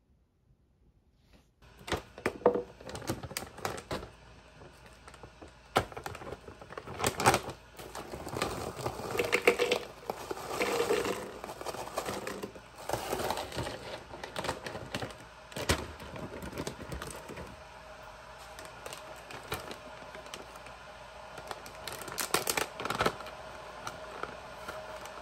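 Kitchen handling sounds starting about two seconds in: frozen berries clattering into a plastic Ninja blender cup and packaging bags crinkling, an uneven run of clicks and rustles.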